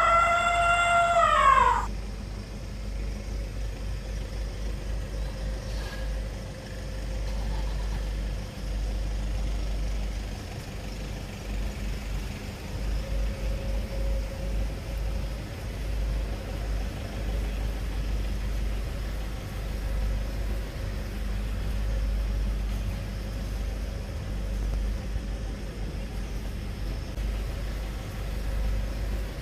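An Asian elephant trumpeting: one loud, clear call of about two seconds that dips in pitch at its end. After it, a steady low rumble.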